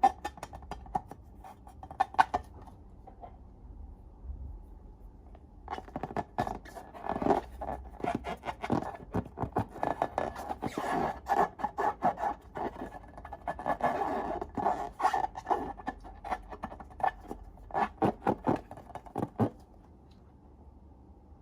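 Slime being squished and worked by hand, giving rapid crackles and sticky clicks. A few clicks come at the start, then a long busy run fills the middle and stops a couple of seconds before the end.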